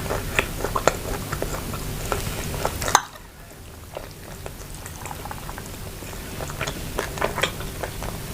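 Close-miked wet mouth sounds of someone eating instant noodles and grilled chicken: many short sharp smacks and clicks of chewing and slurping, with a loud click about three seconds in.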